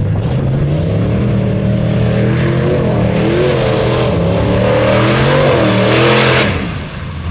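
Early-1980s Ford F-series pickup's engine revving hard at full throttle as the truck launches and drives through a mud hole. Its pitch climbs and wavers as the tyres spin and grip. A growing rush of noise from the spinning tyres and thrown mud comes in halfway through, and both cut off sharply about six and a half seconds in as the driver lets off.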